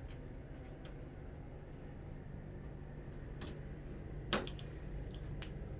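Quiet room tone with a steady low hum, broken by a few soft clicks about three and a half and four and a half seconds in.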